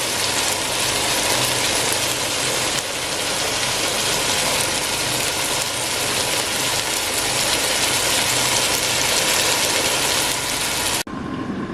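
Curry sizzling and frying in a pot, a dense steady crackle that stops abruptly near the end.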